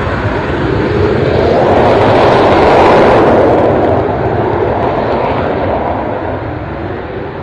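Single-engine BAE Hawk jet trainer's turbofan at takeoff power as the jet rolls away down the runway. The sound swells to its loudest about three seconds in, then fades as the aircraft draws away.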